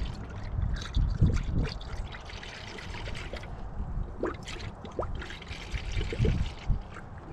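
Antifreeze being poured into a coolant-filling funnel on a Nissan Frontier's radiator, trickling and gurgling as the funnel fills while the cooling system is topped up.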